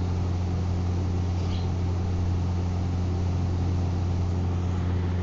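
Steady low hum with a faint even hiss, unchanging throughout: the recording's background noise with no speech.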